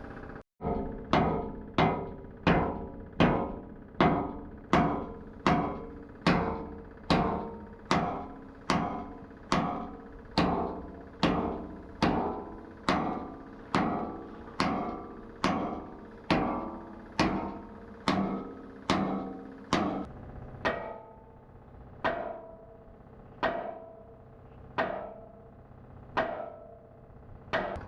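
Hammer blows on steel, each strike ringing and dying away: a quick steady beat of about one and a half blows a second, slowing to about one blow every second and a half for the last third.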